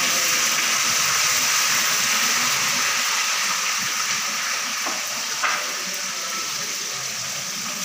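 Onions frying in hot oil in a pan, a steady sizzle. A couple of light clicks about five seconds in.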